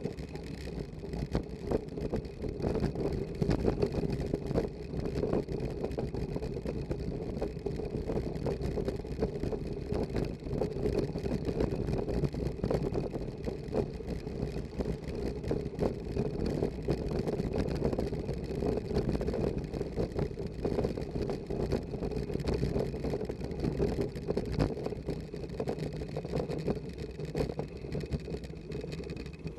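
Bicycle rolling over wet cobblestones, heard through a handlebar-mounted Contour Roam action camera on a makeshift Jessop/Minoura mount. A continuous rattling rumble of the camera, mount and bike shaking over the setts, with a dense run of rapid small knocks.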